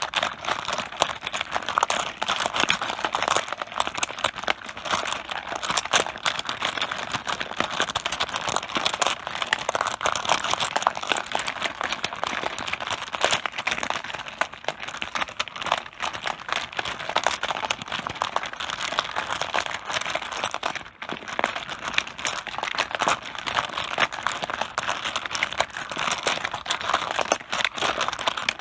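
Mahjong tiles clattering and clacking against one another on a tabletop, a dense, continuous stream of small overlapping clicks, with a brief lull about two-thirds of the way through.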